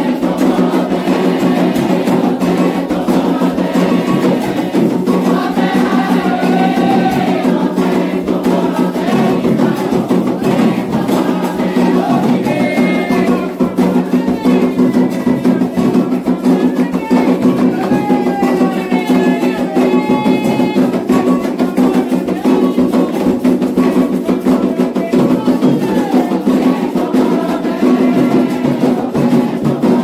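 Candomblé ritual music: drums beating a steady rhythm with group singing, and a metal hand bell (adjá) rung for calling the orixás.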